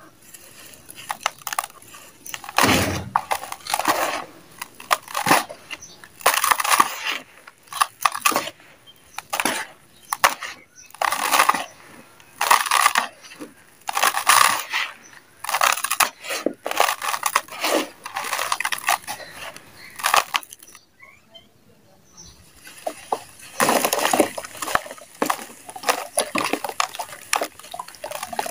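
Dry, dusty dirt chunks crumbled and squeezed by hand, the crumbs and dust pouring down into a plastic basin in a run of short gritty crunching, hissing bursts. Near the end, crumbled chunks fall into water in the basin.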